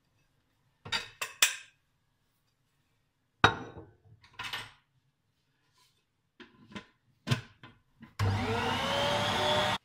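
A series of knocks and clinks as bowls and a lid are handled on a stainless steel stand-mixer bowl, the loudest a sharp knock about three and a half seconds in. About eight seconds in the stand mixer's motor switches on and runs steadily, its whine rising as it spins up to knead bread dough.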